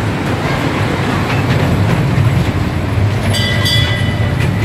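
Ride-on kiddie train rumbling along its track, heard from inside the car. The rumble grows louder as it picks up speed, and a high ringing tone sounds briefly near the end.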